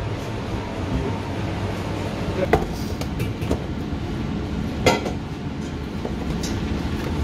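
Steady low hum of a commercial kitchen, with a few sharp knocks and clicks of things being handled on a steel counter, the two loudest about two and a half and five seconds in.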